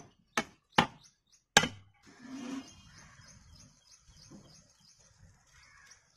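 Metal ladle knocking sharply on the rim of a large aluminium biryani pot, four quick knocks in about a second and a half. Soft rustling and handling follow as a cloth is wrapped around the pot's rim to seal it for dum cooking.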